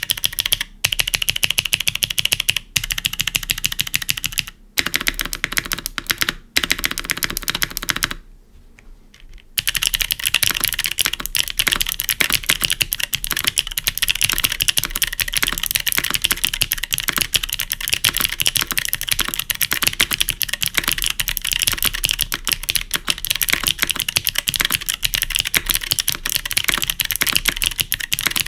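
Fast typing on a Neo75 CU gasket-mount keyboard with Invokeys Pea Flower clicky switches, an aluminium plate and GMK keycaps: a dense run of crisp switch clicks. The typing stops briefly several times in the first few seconds, breaks off for about a second and a half about eight seconds in, then runs on without a break.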